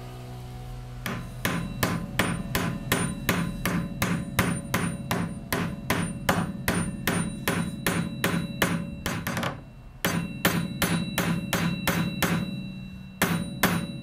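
A hammer striking a steel rivet over its rove, peening it closed by hand through an oak door, in fast even blows of about three to four a second with a metallic ring. The hammering stops briefly about ten seconds in and again a couple of seconds later, then carries on.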